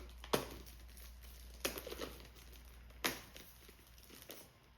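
Handling of toy packaging: three sharp clicks or taps about a second and a half apart, with light crinkling between them.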